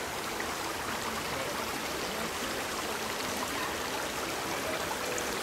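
Steady rushing of running water from a stream, with faint voices.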